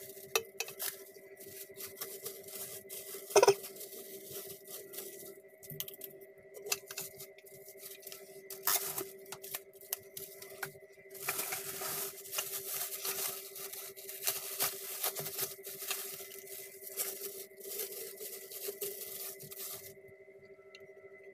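Clear plastic packaging crinkling and rustling as hands unwrap a pump bottle, with a sharp knock about three seconds in. The crinkling is thickest in the second half. Faint steady tones hum underneath.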